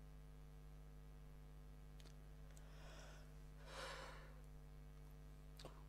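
Near silence with a steady electrical hum; a man breathes out audibly, one sigh about four seconds in after a fainter breath just before, and there are a couple of faint clicks.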